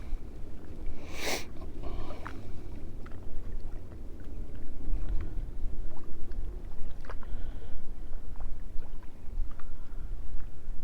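Wind buffeting the microphone in gusts, a heavy low rumble that swells and falls, with a short rushing hiss about a second in and a few faint ticks.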